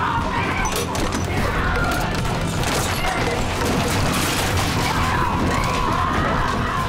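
A violent struggle in a drama soundtrack: repeated crashing and smashing of shelving and goods, a woman screaming, and tense music underneath.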